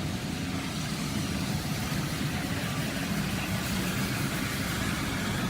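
Floor scrubber running steadily, its motors and brushes making an even low mechanical hum with a hiss above it.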